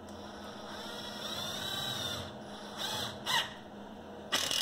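Hercules 12V cordless impact driver driving a 3-inch deck screw into wood. A soft motor whir comes first, then about four seconds in the impact mechanism starts hammering loudly as the screw bites in.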